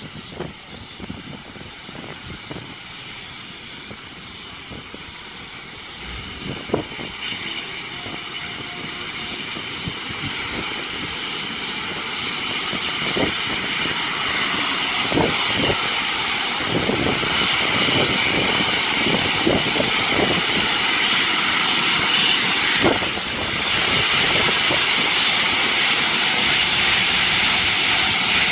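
Steam locomotive 3526, a NSW C36 class 4-6-0, drawing slowly into the platform, its steam hiss and running noise growing steadily louder as it comes closer, with scattered knocks along the way.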